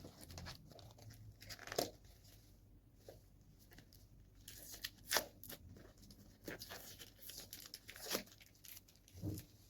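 Eating sounds picked up close to the mouth while eating noodles: quiet chewing, with a handful of sharp, wet mouth smacks and clicks scattered through.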